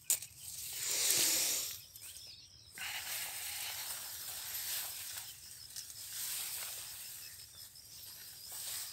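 Rice plants rustling and swishing as someone pushes through the standing paddy rice, loudest about a second in, then a softer steady brushing.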